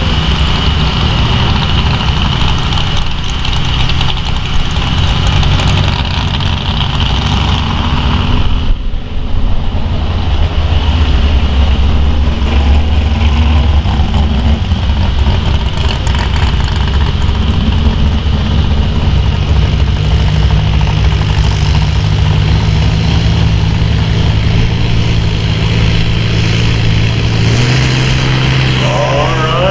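International Harvester 1066 farm tractor's diesel engine working at full load as it pulls a weight-transfer sled. The steady, loud run dips briefly about nine seconds in, and the engine note steps up near the end as the pull finishes.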